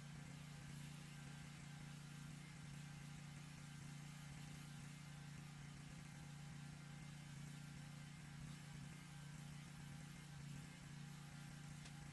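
Lawn mower engine running at a steady speed, a faint, even hum.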